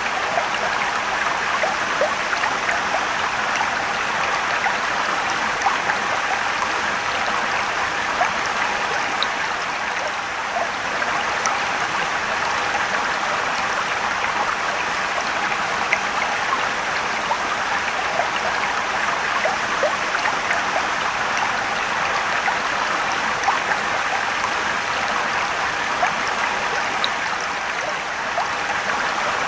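Rushing, trickling river water: a steady hiss of flowing water with small splashes and drips scattered throughout.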